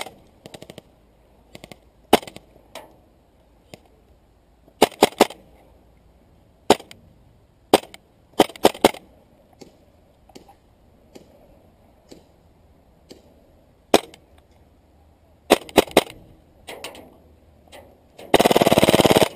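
Airsoft electric guns (AEGs) firing: scattered single shots and short bursts of sharp pops, ending in a dense full-auto burst about a second long.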